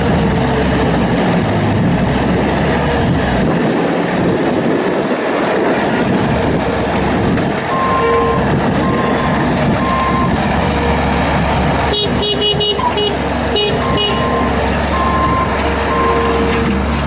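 Bobcat S450 skid steer loader's diesel engine running steadily, with short beeps repeating from about halfway through. Two brief clusters of sharp horn-like toots come about three quarters of the way in.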